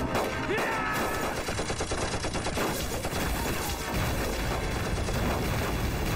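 Dense, continuous battle gunfire: many rapid, overlapping shots from rifles and pistols, among them a revolver being fired, with no pause.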